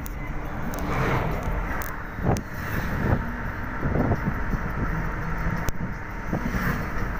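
Engine and road noise inside a moving bus: a steady low rumble with scattered rattles and knocks from the body and fittings.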